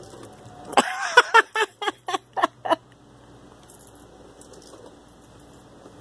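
A cat giving a quick run of short chirping calls, about eight in two seconds, that stops abruptly.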